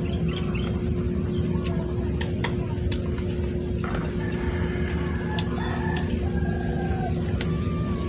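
A rooster crowing, one long drawn-out call starting about four seconds in, over a steady low background noise with scattered small clicks.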